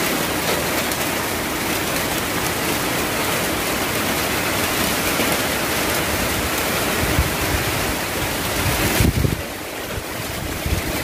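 Heavy typhoon rain and strong wind making a loud, steady rushing noise, with low rumbling gusts about seven to nine seconds in; the noise eases briefly just after that.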